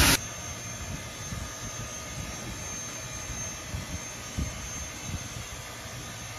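A narrow-gauge train rolling along the track, heard from an open riding car: a steady rumble of wheels on the rails with a few faint clunks. A louder sound cuts off abruptly right at the start.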